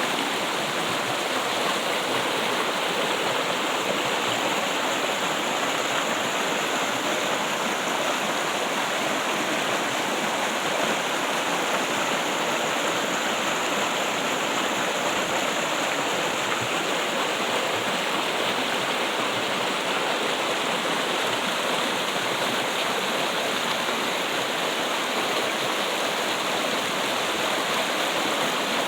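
Running water trickling and splashing steadily, as from a stream or small waterfall, without a break.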